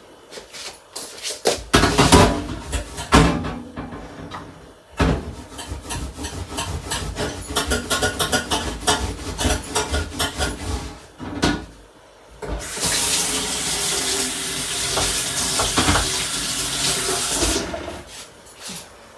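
Wire cutlery basket being scrubbed with a sponge at a kitchen sink to get sticky residue off, with irregular knocking and rubbing. A tap then runs steadily for about five seconds near the end.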